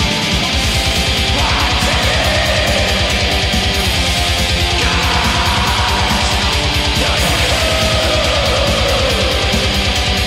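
Black metal music: distorted electric guitars over fast, evenly pulsing drums, loud and unbroken.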